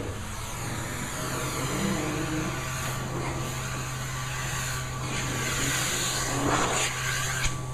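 Carpet-cleaning extraction machine's vacuum motor running steadily: a constant hum under an even rush of air drawn through the hose and wand.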